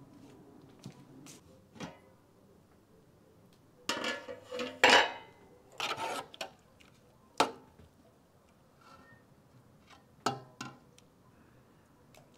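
Metal ladle and aluminium cooking pot clanking and clinking as thick soup is stirred and ladled out. There are a few light knocks at first, a cluster of louder clanks from about four to seven seconds in, and two more knocks near ten seconds.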